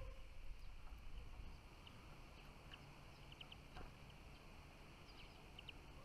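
Near silence with faint, scattered short high chirps of small finches, some in quick pairs and threes, over a low rumble.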